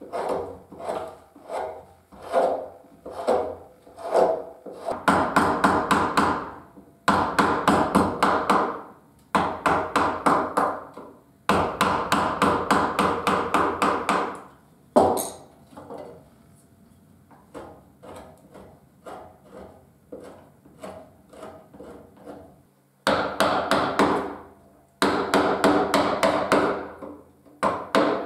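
Round wooden carver's mallet tapping a carving gouge through cherry wood, in quick runs of light blows with short pauses between them. The taps are softer and sparser in the middle stretch.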